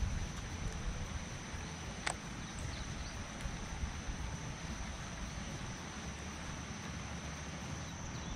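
Outdoor background of wind rumbling on the microphone with a thin, steady high-pitched whine, like an insect calling, and a single sharp click about two seconds in.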